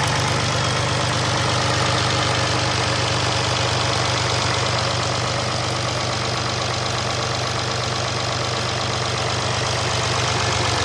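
Freshly rebuilt Audi 3.0 TDI V6 diesel engine (CASA) idling steadily on its first run after the overhaul.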